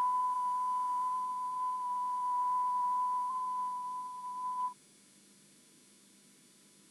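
Colour-bar test tone from the start of a VHS tape: one steady, pure high beep that cuts off suddenly after about four and a half seconds, leaving faint tape hiss.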